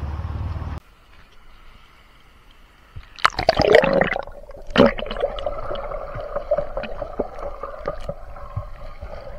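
River water splashing and gurgling as a person gets in to bathe. There are loud splashes about three seconds in and again near five seconds, then steady gurgling. A steady rush at the start cuts off abruptly under a second in.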